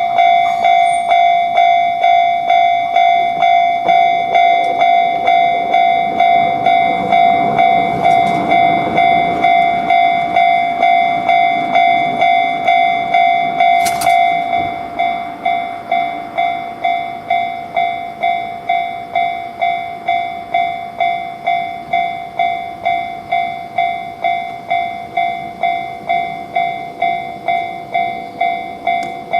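Japanese level-crossing warning bell ringing its "kan-kan" alarm, about two strikes a second. A passing train adds a rumble in the middle. After a click about halfway through, the bell carries on a little quieter.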